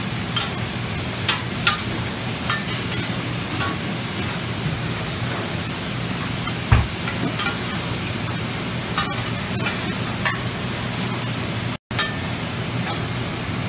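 Food sizzling on a large flat-top steel griddle, with metal spatulas clicking and scraping against the steel now and then and a steady low hum underneath. A dull thump comes about halfway, and the sound cuts out for a moment near the end.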